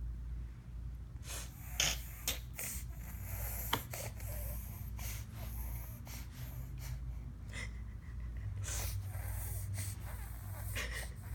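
Short sniffing and snorting noises, one every second or two with gaps between, over a steady low hum.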